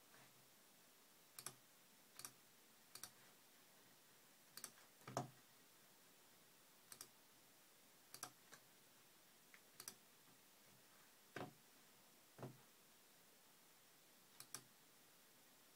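Sharp clicks of a MacBook trackpad being pressed and released, often in quick pairs, a dozen or so at irregular intervals over near-silent room tone; the strongest comes about five seconds in.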